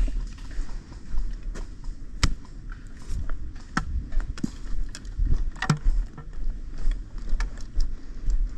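Footsteps of a player walking through woodland, with gear rustling and a low rumble of wind or handling on the body-worn microphone. Scattered sharp clicks and cracks through it, the loudest about two and a half seconds in and near six seconds.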